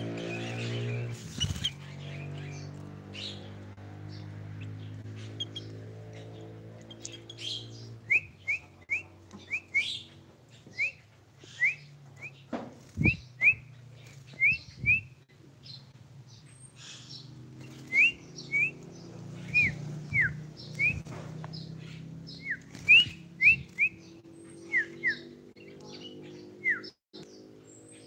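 Sooty-headed bulbul (kutilang) giving short, sharp chirps in quick runs of two to five notes, some rising and some falling, starting about a third of the way in and going on until near the end.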